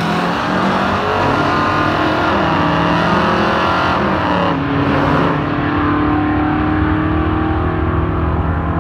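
Two drag-racing cars, a Cadillac and a Mustang, accelerating hard away down the strip, engines revving up under full throttle. The pitch drops once about four and a half seconds in, as at an upshift, then climbs again.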